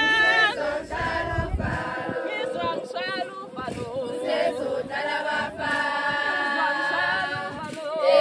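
A group of women singing a Zulu traditional song together, unaccompanied.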